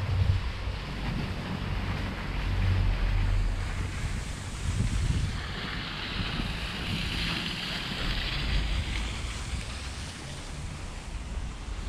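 Wind buffeting the microphone in uneven gusts, with a rushing hiss that swells and fades about halfway through.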